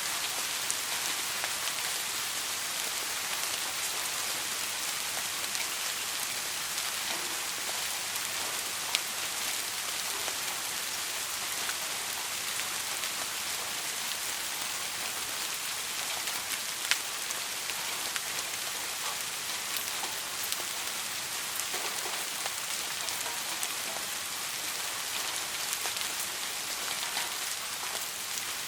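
Steady rain falling on a surface, an even hiss with individual drops ticking through it, a couple of louder drops about 9 and 17 seconds in.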